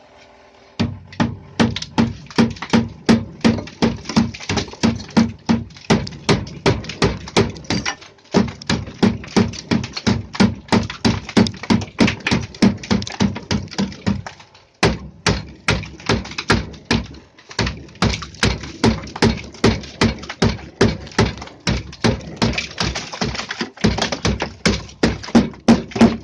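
Repeated knocking at a steady pace of about two blows a second, in runs broken by a few short pauses: ice being knocked and chipped loose inside a refrigerator being defrosted.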